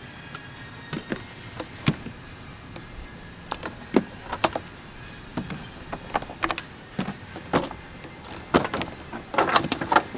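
Irregular clicks and clunks of tools and parts being handled while work begins in the engine bay, with a quick run of clicks near the end.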